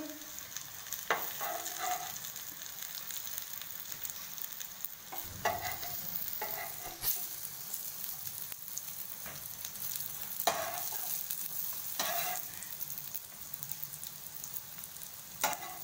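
Alu vadi (colocasia leaf rolls) sizzling steadily as they shallow-fry in oil in a non-stick frying pan. A spatula knocks and scrapes on the pan a handful of times as the pieces are moved.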